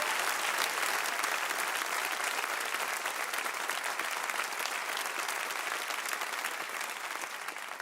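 Studio audience applauding, the clapping slowly dying away toward the end.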